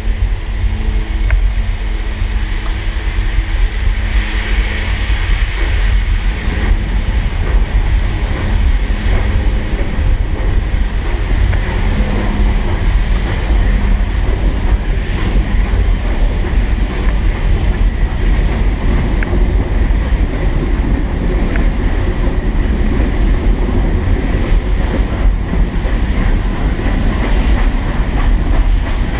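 Steady rumble of the 1915 Baldwin steam locomotive's train running, heard from on board, with heavy wind buffeting the microphone.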